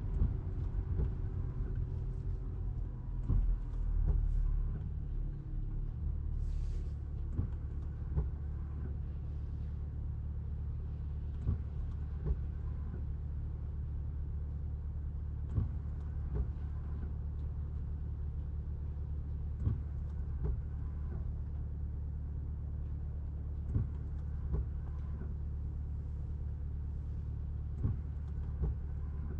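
Low steady rumble heard inside the cabin of a 210-series Toyota Crown Athlete hybrid as it slows and comes to a stop within the first several seconds. It then sits stationary with an even low hum, and sharp ticks come every few seconds.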